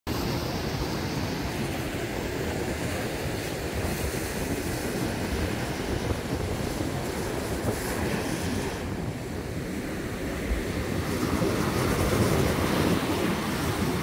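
Small surf breaking and washing up over a sandy beach, with wind rumbling on the microphone. The surf grows a little louder near the end.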